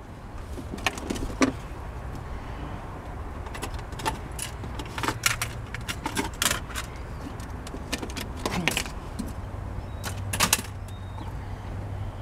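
Irregular clinks, rattles and small knocks of loose objects being handled and gathered inside a truck cab, with a low steady hum underneath that strengthens in the last few seconds.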